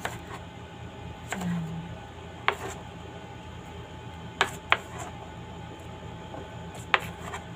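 Cucumber being diced with a knife on a plastic cutting board and the pieces scooped by hand into a bowl: a handful of sharp, scattered clicks of knife and cucumber on board and bowl, over a steady low hum.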